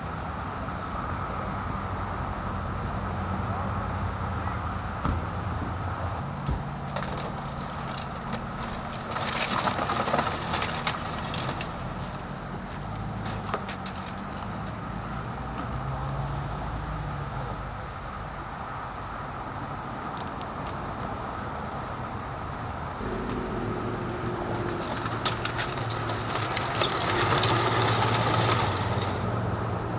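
Idling emergency-vehicle engines giving a steady low hum, with freeway traffic swelling past twice, about ten seconds in and again near the end, and scattered small clicks and knocks.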